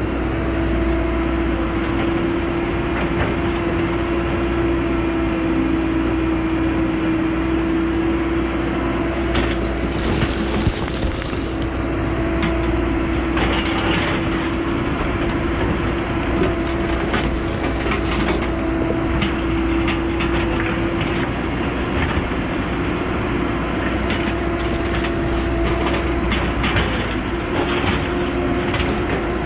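Cat 314E LCR excavator running under load, its engine and hydraulics making a steady drone with a constant tone, while short clanks and rattles come from the bucket and boom working in broken rock.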